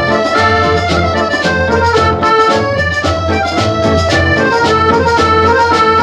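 Instrumental Hindi film-song music from an early-1960s record: an accordion-like reedy melody carries the tune over a steady beat.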